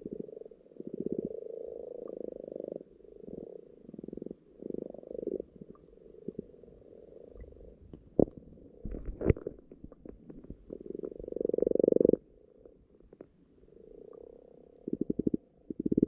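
Common frogs croaking underwater, heard through a submerged microphone: low croaks made of rapid pulses, coming in runs of about a second, one after another. Two sharp knocks a second apart about eight seconds in.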